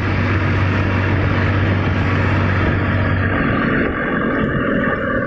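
Eicher 480 tractor's diesel engine running under way on the road, a loud, steady drone heard from on board; its low tone shifts about three and a half seconds in.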